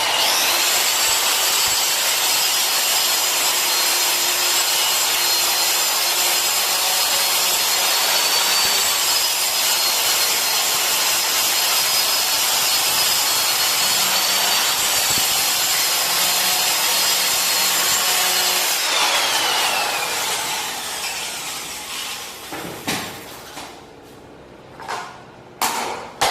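Handheld electric cutter machine cutting sunmica laminate sheet, a loud steady high whine with grinding cutting noise. After about nineteen seconds the motor is switched off and winds down with a falling whine, followed by a few short knocks.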